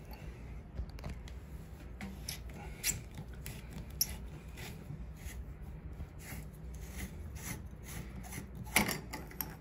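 Metal shower-valve sleeve being unscrewed by hand from the valve body: faint scraping and rubbing of metal parts, with scattered small clicks and a few sharper ticks about three and four seconds in and a louder scrape near the end.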